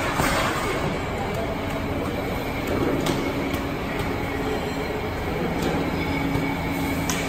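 Steady mechanical workshop noise: a continuous rumble with a thin high whine and occasional sharp metallic clicks.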